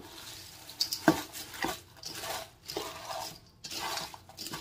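A metal spoon stirring sticky, peanut-butter-coated cornflakes in a stainless steel mixing bowl: irregular scraping and rustling, with a few sharp clinks of the spoon against the bowl.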